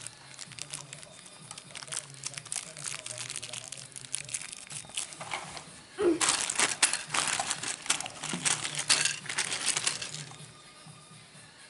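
Plastic packaging crinkling as it is handled and opened, in a busy crackle that gets much louder from about six to ten seconds in.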